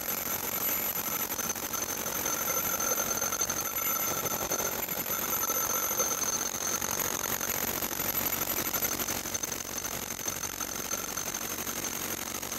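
Rotary hammer drill boring into concrete with a stepped, collared drill bit, running steadily with a high whine over the rattle of the hammering.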